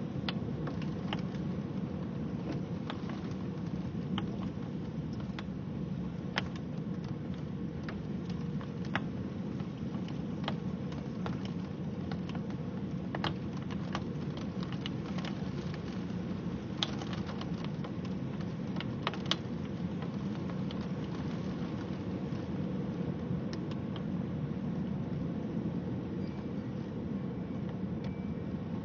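Steady rush of storm rain and wind, with scattered sharp ticks of raindrops hitting a hard surface close by.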